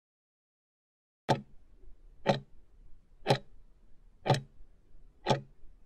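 Clock-tick sound effect ticking once a second, five sharp ticks, counting down the last seconds of a countdown timer.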